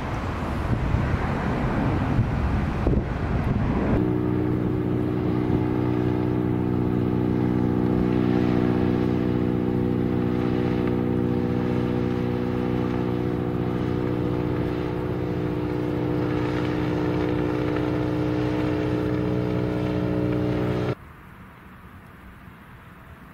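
A four-engine jet climbing away, a dense rush of jet noise. About four seconds in it gives way to the steady multi-tone drone of a Zeppelin NT airship's piston engines and propellers, which stops abruptly near the end, leaving only faint background noise.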